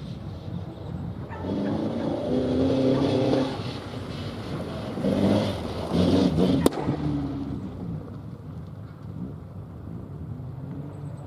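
Rally car engine revving hard on the stage in two loud bursts, the first starting about a second and a half in and the second just past the middle. A single sharp crack comes at the end of the second burst, after which the engine fades to a lower drone.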